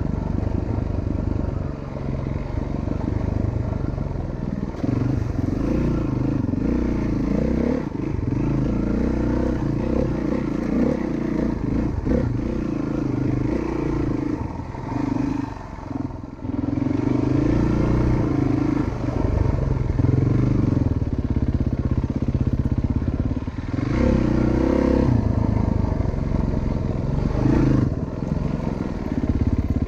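Single-cylinder four-stroke dirt bike engine running as it is ridden, its note rising and falling with the throttle, with a short drop in level about halfway through.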